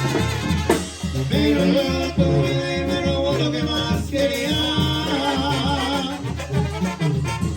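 A Mexican banda playing: brass and wind melody lines over an evenly pulsing tuba bass, with singing.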